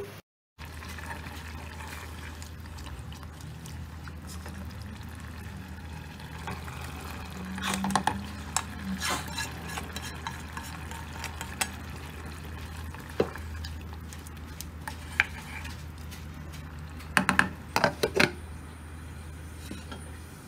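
A ladle stirring thick gravy in a pan, with knocks and clinks of utensils against the pan and a cluster of clatters near the end as the lid goes on, over a steady low hum.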